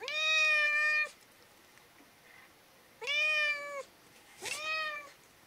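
Domestic cat meowing three times: a long meow of about a second at the start, then two shorter meows about three and four and a half seconds in.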